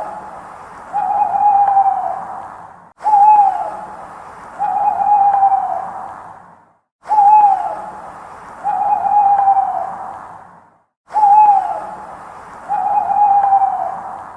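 An owl hooting in pairs: a short falling hoot, then a longer held hoot about a second later, with an echoing tail. The pair repeats about every four seconds, with a brief cut to silence between repeats.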